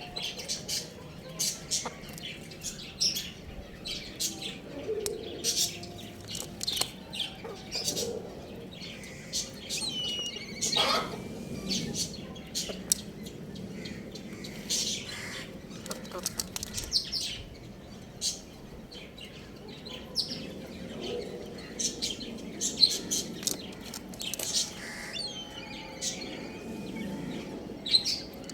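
Young chickens chirping: many short, high peeps in a quick, irregular stream over a faint low background murmur.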